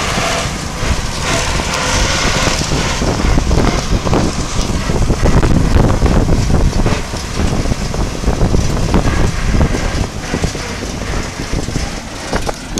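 Wind buffeting the microphone of a moving bicycle, over the steady running of a tractor engine just ahead, with road and tyre noise. The level swells and dips unevenly.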